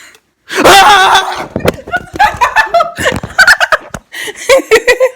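A sudden loud vocal outburst about half a second in, then choppy laughter and snickering with a few sharp smacks.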